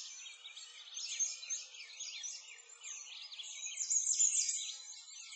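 Many songbirds chirping and trilling together, a dense chorus of short, quick rising and falling calls that overlap without a break.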